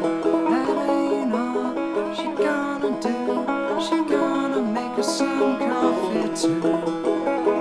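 Instrumental old-time folk string music, with quick plucked notes and some sliding notes, and no singing.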